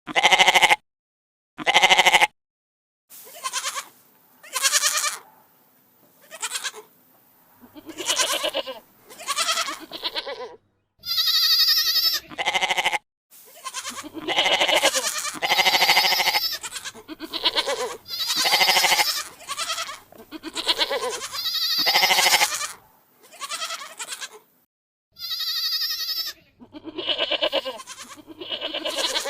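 Goats bleating: a long series of separate calls, each half a second to a second and a half long, some wavering in pitch, a few high and thin.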